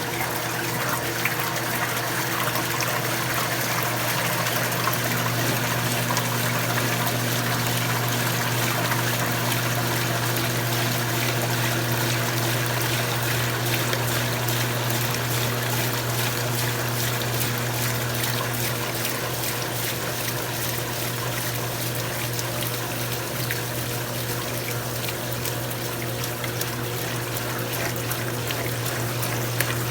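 Electrolux Prosdócimo washing machine running: water trickling and splashing over a steady low electric hum from its motor or pump.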